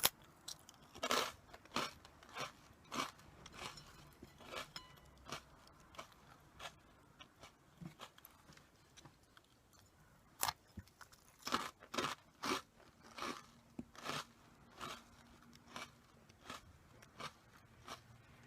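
Close-up chewing of crunchy Karl corn puffs (Meiji's mentaiko-butter flavour): a string of sharp crunches a few times a second. The loudest bites come about a second in and again around the middle.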